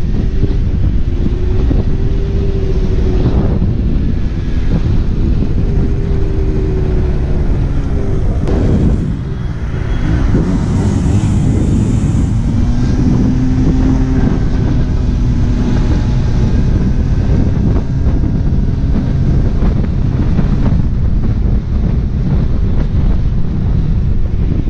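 A small scooter engine running on the move, its pitch rising and falling, under heavy wind buffeting on the microphone. The engine note briefly drops off about nine seconds in, then picks up again.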